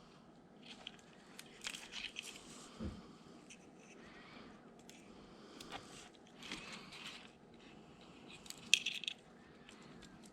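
Scattered small clicks, taps and scrapes of hands handling a micro RC crawler's servo wire and plastic plug while trying to plug it back into the receiver, with a sharp cluster of clicks near the end.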